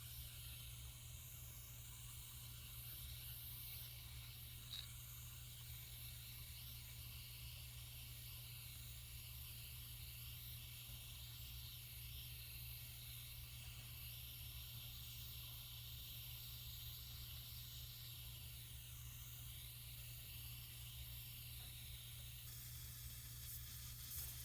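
Gas torch flame hissing steadily, turned up high to melt scrap 14k gold in a crucible, with a low hum underneath.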